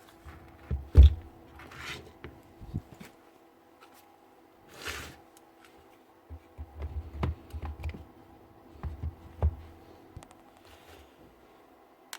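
Handling noise from a grease gun and its parts being worked on: scattered clicks, knocks and scrapes, with a loud knock about a second in and two short rushing sounds, over a faint steady hum.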